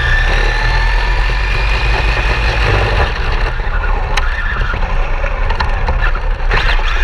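Electric RC car running, its motor giving a steady high whine over a heavy low rumble, with a sharp click about four seconds in.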